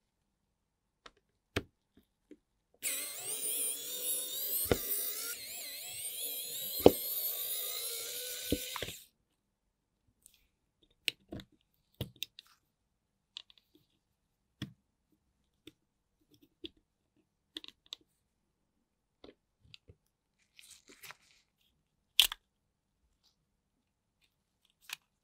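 Close hand work on a GoPro Hero 3+ camera being pried open with a plastic spudger. A continuous scraping noise starts about three seconds in and lasts about six seconds, then come scattered small clicks and taps of plastic parts, with one sharper click near the end as the case comes apart.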